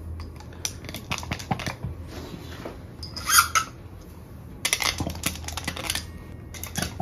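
Hand vacuum pump for plastic cupping cups being squeezed again and again, a run of sharp clicks about a second in and another around five seconds, as suction is drawn on the cups. A short breathy hiss about halfway through is the loudest sound.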